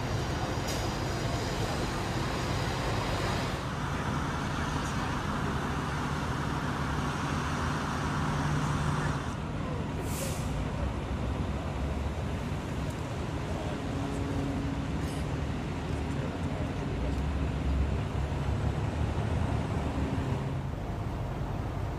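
Steady low rumble of idling fire-truck engines with road noise, its tone shifting a few times. A brief hiss about ten seconds in.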